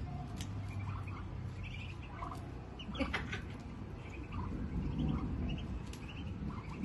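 Ducklings peeping: short, high chirps scattered irregularly, several birds at once, with one sharp click about three seconds in.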